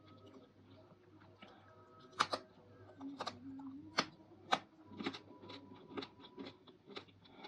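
Crisp crunching and cracking of dried fruit and vegetables eaten close to the microphone: irregular sharp crunches, a few each second, the loudest about two, four and four and a half seconds in.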